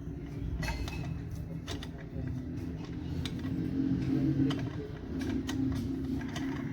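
Scattered metallic clicks and taps of hand tools working on a car engine's cylinder head, over a steady low hum.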